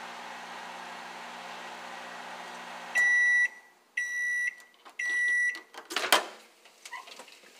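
Samsung microwave oven running with a steady hum that stops about three seconds in, followed by three loud end-of-cycle beeps about a second apart, signalling the heating is done. Then the door is pulled open with a sharp clunk.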